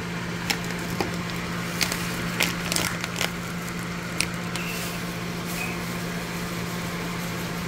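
Steady low hum of a kitchen appliance, with a handful of light clicks and taps in the first four seconds as spice containers are handled over a bowl.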